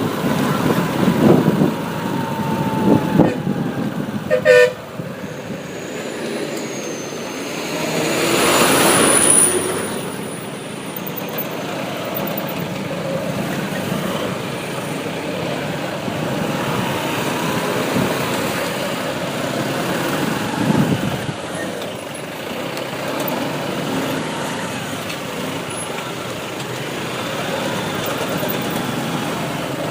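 Road traffic heard while riding a bike: steady engine and traffic noise, with a vehicle horn sounding in the first few seconds and a short toot about four and a half seconds in. A vehicle passes close and loud about nine seconds in.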